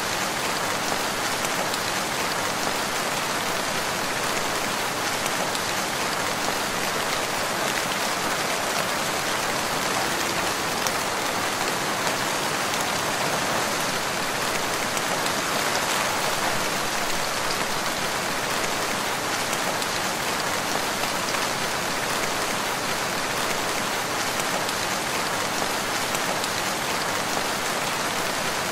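Steady rain falling, even and unchanging throughout.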